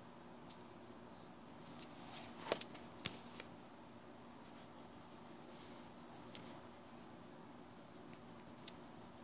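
Coloured pencil scratching on a colouring-book page in short back-and-forth strokes, with a few sharper clicks about two and a half and three seconds in.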